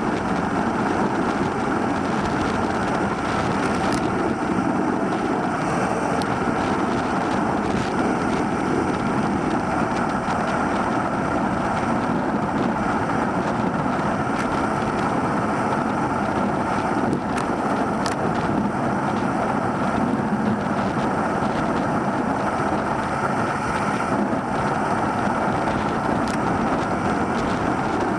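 Steady wind rushing over the microphone of a handlebar-mounted Cycliq Fly 12 bike camera, mixed with road noise from the moving bicycle.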